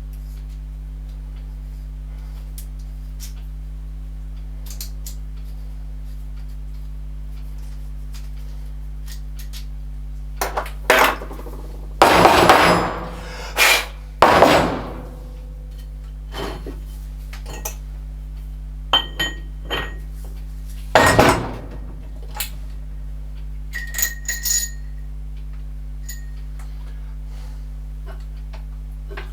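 Metal tools and parts clinking and knocking against each other and a hard surface, several loud clanks with short metallic rings, clustered between about ten and twenty-five seconds in, over a steady low hum.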